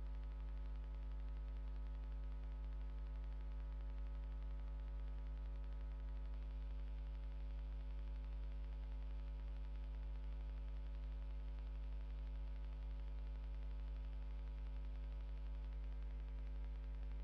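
Steady electrical mains hum with faint hiss, a stack of unchanging tones and nothing else standing out.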